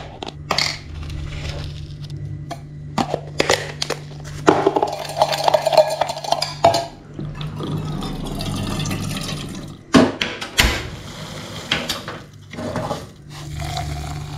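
Kitchen clatter while making coffee: a spoon and containers clink and knock against a metal mug, and water is poured into a metal saucepan with a steady splashing hiss in the middle stretch.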